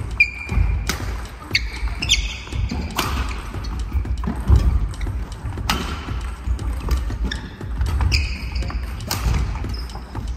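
Badminton rally on a wooden gym floor: sharp racket-on-shuttlecock hits a second or two apart, with short high shoe squeaks and footsteps thudding between them, echoing in the hall.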